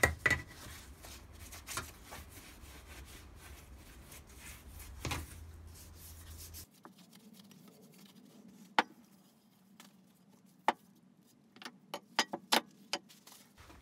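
Soft rubbing of a cloth or paper towel on the cast-iron body of a Stanley No. 8 jointer plane as it is wiped with oil, with a few clicks. About halfway through the rubbing stops, and scattered sharp clicks and knocks follow as the metal plane is handled.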